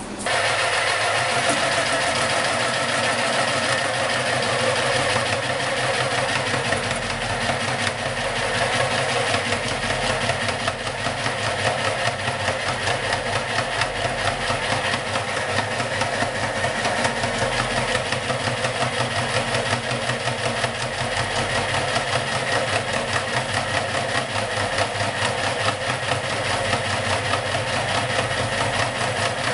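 Homemade jigsaw table driven by a handheld electric jigsaw mounted underneath, switched on at the start and running steadily, its blade going up and down at a fast even rate while it cuts a board of about 20 mm.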